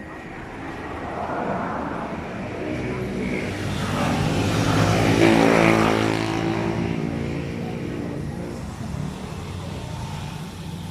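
A motor vehicle's engine passing close by: it grows louder to a peak about halfway through and then fades away.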